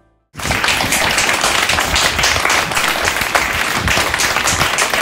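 Applause from many hands clapping, starting suddenly about a third of a second in and then going on steadily.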